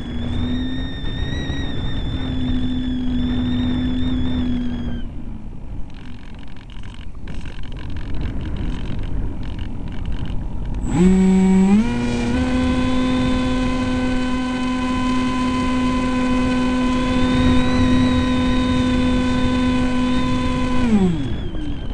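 Brushless electric motor and propeller of an EasyStar RC plane, heard through its onboard camera: a steady whine that cuts out after about five seconds, leaving only wind noise for about six seconds. The motor then comes back on, stepping up in pitch twice, and runs steadily until it winds down near the end.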